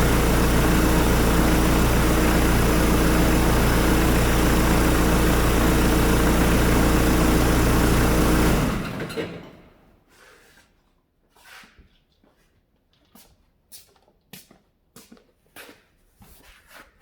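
Hyundai D4BH four-cylinder turbodiesel idling steadily, then switched off about two-thirds of the way through, running down within about a second. A few faint scattered clicks follow.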